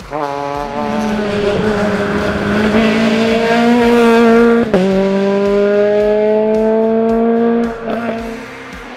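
Peugeot 208 rally car's engine pulling hard, its pitch climbing steadily for about four and a half seconds. It drops sharply in a quick upshift and climbs again through the next gear, then falls away near the end as the car passes.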